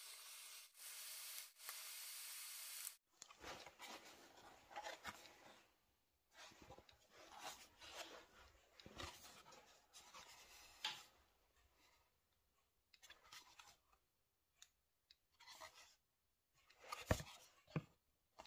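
A steady hiss that cuts off about three seconds in. After it come faint, intermittent rubbing and scraping of a plastic scooter engine cooling shroud being handled, with a sharper knock near the end.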